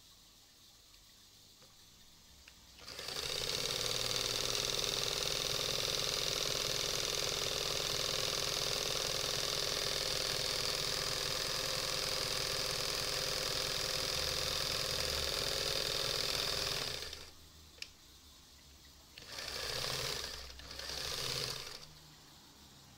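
Singer 320K sewing machine stitching through thick leather-like material. It starts about three seconds in and runs steadily for about fourteen seconds, stops, gives a single click, then makes two short bursts of stitching.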